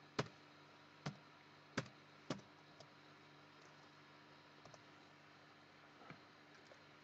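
Scattered computer keyboard keystrokes: four sharp clicks in the first two and a half seconds, then a few fainter ones near the end, over a faint steady hum.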